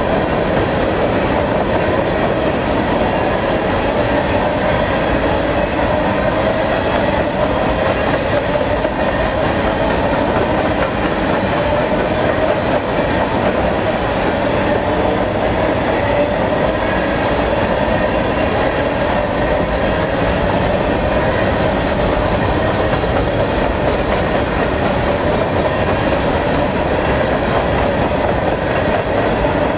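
Freight train of covered hopper grain cars rolling past, a steady, loud rumble and clatter of steel wheels on the rails.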